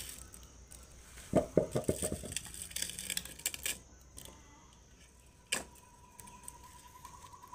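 Firewood sticks knocking and clattering together as they are laid into a brick-and-stone hearth: a quick run of knocks about a second and a half in, lasting about two seconds, then one more knock a little past halfway.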